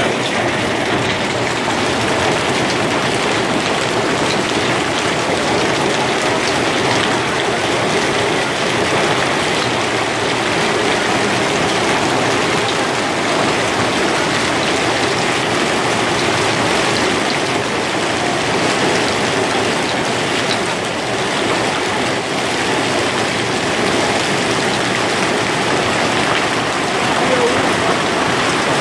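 Heavy hail and rain pelting down in a violent storm, a loud, dense, unbroken patter on the terrace and its furniture.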